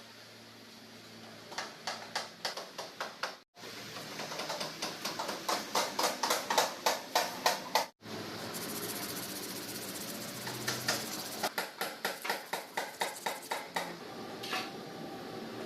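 Front wheel of a Yamaha MT-15 motorcycle turning with a rhythmic ticking, about five clicks a second, in several stretches broken by sudden cuts. It is the abnormal front-wheel noise being shown.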